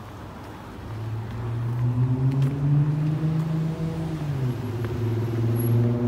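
A car engine running, growing louder from about a second in. Its pitch rises, drops briefly about four seconds in, then climbs again.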